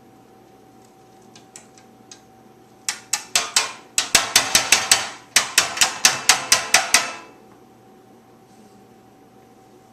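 Rapid series of sharp clacks from kitchen utensils being knocked together or against a dish, about four to five a second in two runs of roughly two seconds each, after a few lighter taps.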